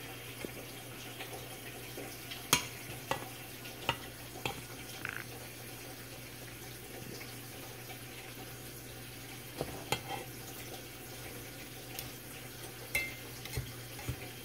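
A fork stirring and fluffing cooked rice and peas in a metal pot, with sharp clicks where it knocks the pot: several between about two and five seconds in and a few more near ten seconds. A steady hiss runs underneath.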